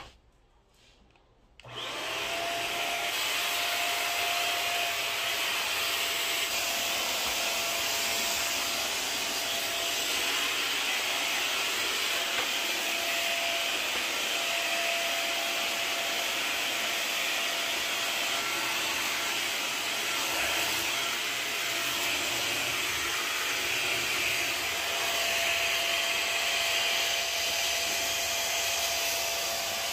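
WAP Wapore Up vacuum-and-steam mop switched on about two seconds in, then running steadily: its motor gives a constant high rush of air with a steady whine.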